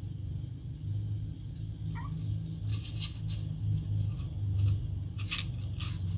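Two kittens, a Russian Blue and an American Shorthair, play-fighting: a few sharp taps and scrapes of paws and claws on a plastic stand base, and a brief rising kitten chirp about two seconds in, over a steady low rumble.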